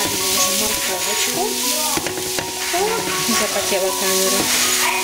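Sliced onion and grated carrot sizzling as they sauté in a frying pan, with the soft shuffle of the vegetables being stirred around with a spatula.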